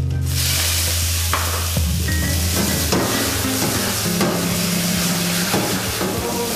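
Baby octopus hitting hot oil in a wok, setting off a sudden loud, steady sizzle just after the start, as the oil flares into flames. The spatula knocks against the wok a few times as the octopus is stirred and tossed.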